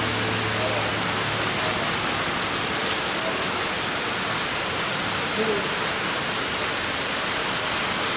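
Heavy typhoon rain falling steadily, a continuous even hiss of rain on surfaces.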